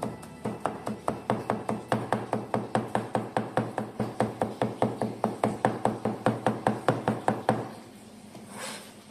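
Chinese cleaver mincing garlic cloves on a cutting board: quick, even chopping strokes at about four a second, stopping a little over a second before the end.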